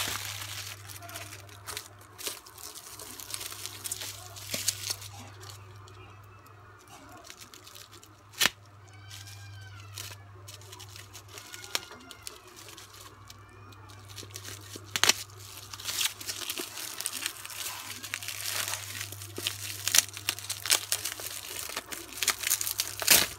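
Plastic mailer bag and bubble wrap handled and pulled open by hand, irregular crinkling and tearing rustles, with one sharp crackle about eight seconds in and busier, louder crinkling from about fifteen seconds on. A steady low hum runs underneath.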